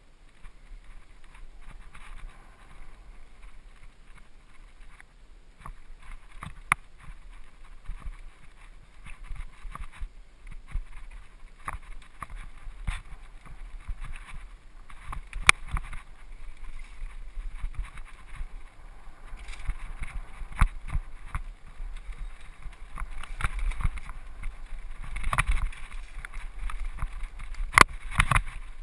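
Mountain bike ridden fast over dirt singletrack, heard through a mounted action camera: rolling tyre rumble and wind on the microphone, with frequent sharp rattles and knocks from the bike and camera mount jolting over bumps. The rattling grows louder and busier in the second half.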